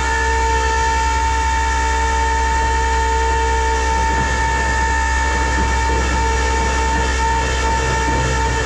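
Tow truck's hydraulic pump running steadily with the power take-off engaged, a loud whine of several held tones over the engine's low hum, as the flatbed is worked to load the car.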